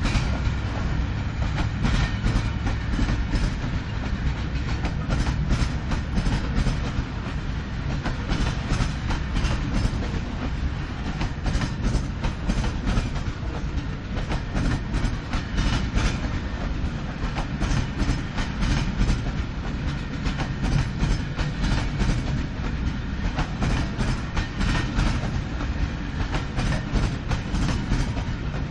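Freight train wagons rolling past: a steady rumble of steel wheels on the rails, with repeated clickety-clack as the wheels cross rail joints.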